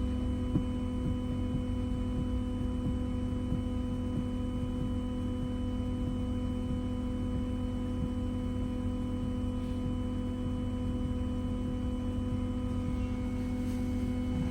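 Steady electrical hum inside a Wright Gemini 2 hybrid double-decker bus, a set of constant tones over a low rumble, with a few faint rattles.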